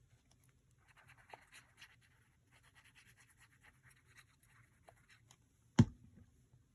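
Paper rustling and scratching as paper pieces are handled, then one sharp knock near the end.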